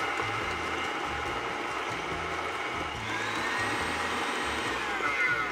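Electric tilt-head stand mixer running steadily at high speed, its wire whisk whipping mascarpone and chilled whipping cream in a glass bowl into a thick filling.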